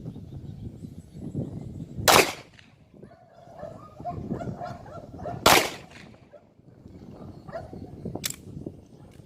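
Handgun fired three single shots, about three seconds apart, in a shooting drill.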